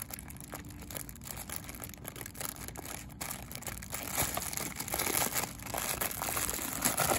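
Thin plastic bubble film crinkling and rustling as a hand slides it onto the mandrel bar of an air cushion machine, louder from about halfway through.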